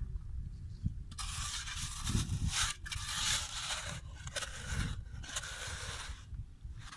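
Steel shovel blade scraping and cutting into damp clay soil at the bottom of a hole, in several gritty strokes with short pauses between them, over a low rumble.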